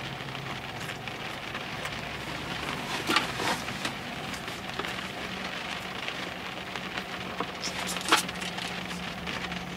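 A steady hiss with a low hum inside a parked car, broken by a few short clicks of chewing and handling food, around three seconds in and again near eight seconds.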